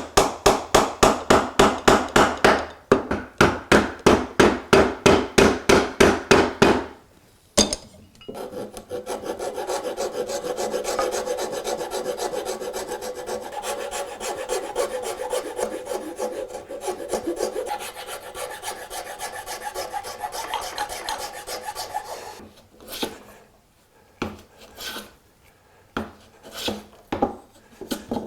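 A rasp working wood in fast back-and-forth strokes, about four a second, for the first seven seconds. After a short pause it gives a quicker, continuous scraping until shortly before the end, followed by a few separate taps.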